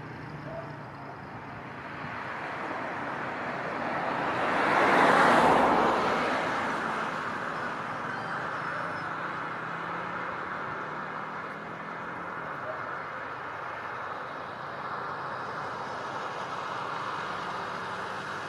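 Steady jet engine noise from a Boeing 737 MAX 8's CFM LEAP-1B turbofans as the airliner rolls along the runway. A louder swell of noise builds and fades about four to six seconds in.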